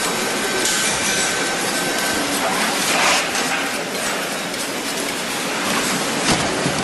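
Steady noisy din of a fish-processing hall, with a couple of brief knocks from fish being handled.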